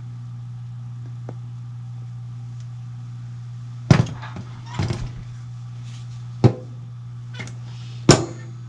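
Handling noise from oiling a bolt-action rifle's trigger mechanism: about five sharp knocks and clicks, the loudest about four seconds in and near the end, over a steady low hum.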